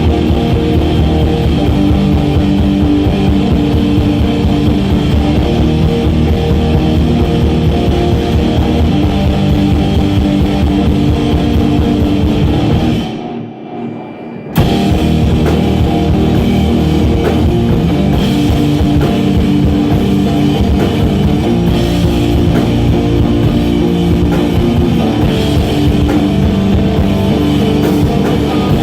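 Live instrumental post-rock played loud on guitar and drum kit. A little past halfway the band stops sharply, leaving a second or so of fading ring, then crashes back in all at once.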